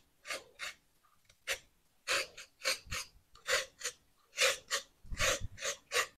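Y-shaped vegetable peeler scraping strips off a raw carrot: a dozen or so short scraping strokes at an uneven pace of about two a second.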